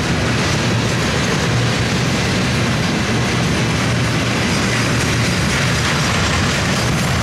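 Loaded bulkhead flatcars of a CSX steel slab freight train rolling past: a steady, loud rolling noise of steel wheels on the rails.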